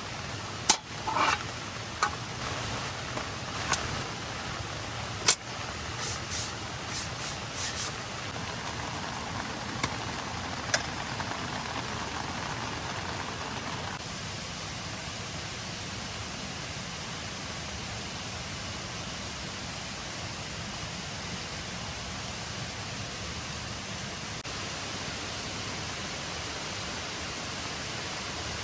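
Steady rush of falling water from rain and a nearby waterfall, with a scatter of sharp clicks and knocks from handled camping gear during the first ten seconds or so.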